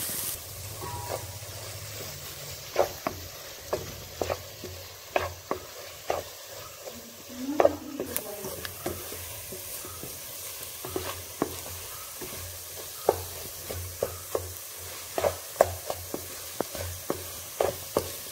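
Wooden spatula stirring and scraping an onion-and-tomato masala frying in oil in a pan. The spatula knocks against the pan at irregular intervals over a steady sizzle.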